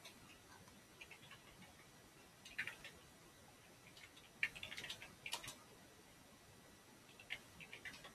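Faint keystrokes on a computer keyboard, in short bursts of typing with pauses between, the busiest stretch about four to five and a half seconds in.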